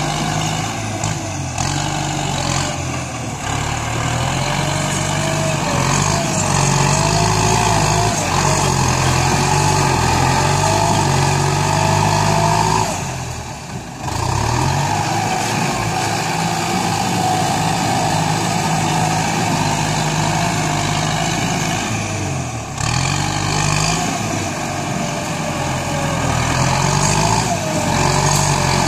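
Kubota M5000SU tractor's diesel engine running under load as it pulls a disc plough through the soil, its note rising and falling. The sound dips briefly about halfway through.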